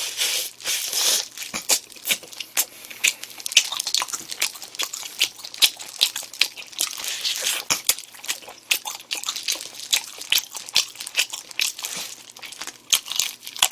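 Close-miked eating of a spicy chicken wing: biting and chewing with rapid, irregular wet mouth clicks and smacks, mixed with the crinkle of disposable plastic gloves on the hands.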